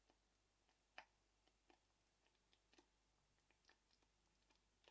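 Thick tomato sauce simmering in a pot, with faint, irregular little pops as bubbles break at the surface; one pop about a second in is a little louder.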